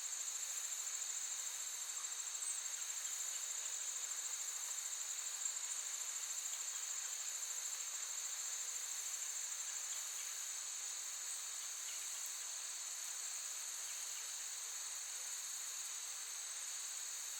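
Chorus of crickets trilling continuously at a high, steady pitch.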